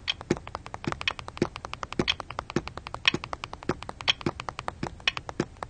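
A ticking clock sound effect: rapid, even ticks with a heavier knock about twice a second.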